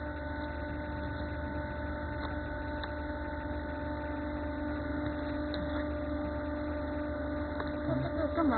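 Steady electric machine hum with several constant tones over a low background drone.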